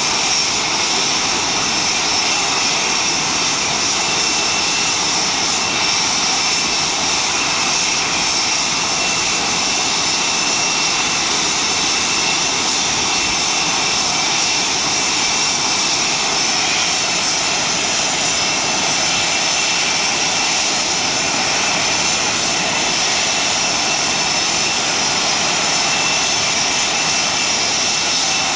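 Blue Angels F/A-18 Hornet jet engines (General Electric F404 turbofans) running on the ground: a steady, loud rushing sound with a high, even whine over it.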